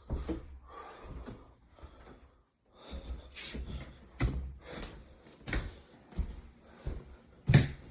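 A string of short knocks and thuds, about a dozen of them, with a brief silent gap about two and a half seconds in.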